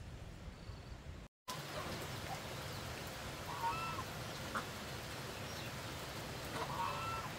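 Farmyard waterfowl giving short bursts of calls, once about three seconds in and again near the end, over a steady outdoor background.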